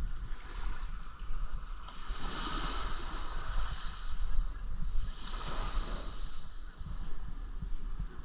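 Wind buffeting the microphone over water washing past the hull of a sailboat under way. The wash swells twice, about two seconds in and again about five seconds in.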